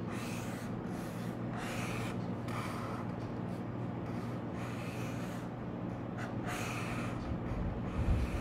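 Sharpie felt-tip marker drawing on paper over a clipboard: a series of short, scratchy strokes at an uneven pace, over a steady low hum. A couple of soft thumps come near the end.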